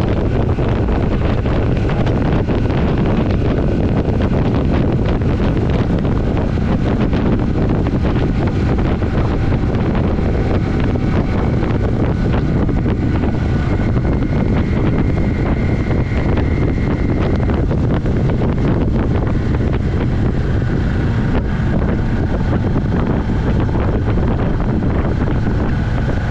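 Heavy wind noise on the microphone of a 1982 Yamaha XS400 Maxim ridden at speed, with the bike's parallel-twin engine faintly heard as a thin tone under the wind from about the middle on.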